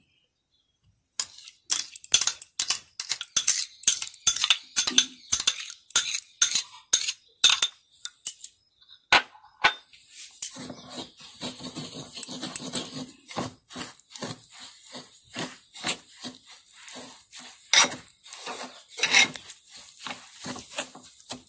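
Steel spoon clinking and tapping against a bowl, several strikes a second, as curd is worked into semolina; from about halfway on it turns into wet scraping and stirring through the thick batter.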